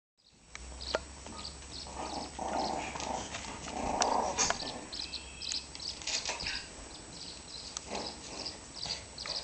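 A mother dog and her puppies play-wrestling on a concrete floor: scuffling and rubbing of fur and bodies, with many quick clicks of claws on the concrete. The scuffling is loudest about two to four seconds in.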